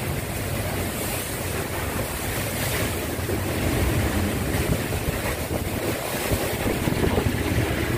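Typhoon wind gusting, a steady rushing noise that buffets the microphone with a few small surges.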